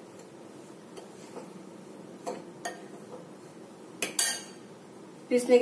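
A metal spoon clinking against a glass mixing bowl while stirring a dry flour-and-spice mix. There are a handful of separate light clinks, the loudest about four seconds in.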